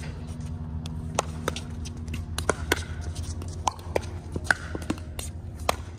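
Pickleball paddles popping against a plastic ball and the ball bouncing on the hard court during a rally: a string of sharp, irregular pops, about eight in a few seconds, over a steady low hum.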